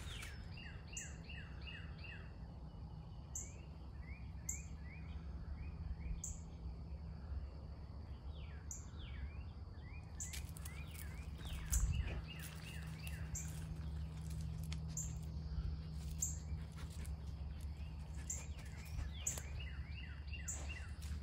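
Songbirds singing in woodland: repeated runs of quick downward-slurred chirps and a regular high chip about once a second, with a thin high steady tone that stops about halfway. A steady low rumble lies underneath, and there is one knock about halfway through.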